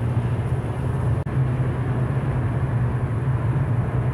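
Car cabin noise while driving at highway speed: a steady low hum of engine and tyres with road rumble over it, broken by a momentary dropout about a second in.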